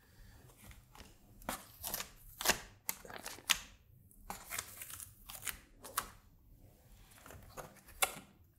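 Masking tape peeled off a cardboard sheet and the card shifted against an acrylic panel: a string of short, quiet rustles and scrapes with a few sharper clicks.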